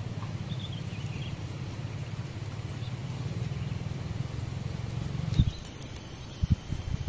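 Outdoor background: a steady low rumble with a few faint high chirps about half a second to a second in, and a single knock near the end.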